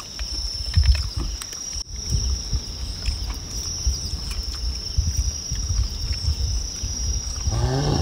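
Crickets chirping steadily, over an uneven low rumble of wind buffeting the microphone.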